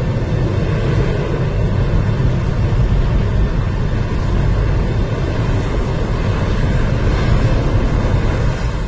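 Roar of a large tornado: a loud, steady, deep rumble of wind noise with no break in it, starting to fade out right at the end.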